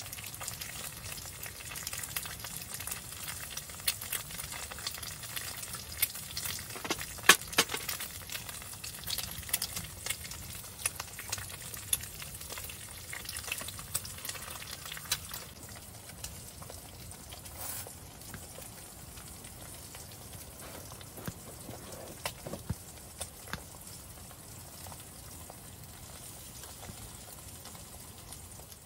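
Eggs and sliced sausage frying in a pan on a wood stove: a steady sizzle with frequent sharp pops of spitting fat, one loud pop about seven seconds in. The popping thins out over the second half.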